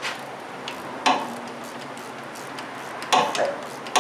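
Hand tool clinking against metal while undoing the 12 mm bolt that holds the power steering lines to the steering rack: a few sharp metallic clinks, one about a second in, another near three seconds and one at the end.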